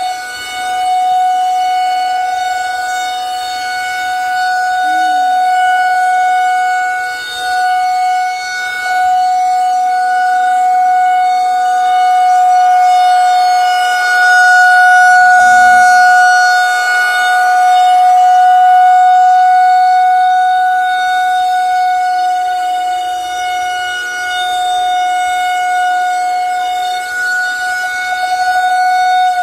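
Federal Signal 2001-130 single-tone electromechanical outdoor warning siren sounding a steady tone at full speed. Its loudness swells and fades slowly as the rotating horn sweeps around.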